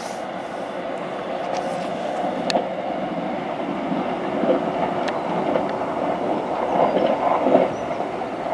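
A train running past on the rails: a steady rumble with a few sharp clicks from the wheels.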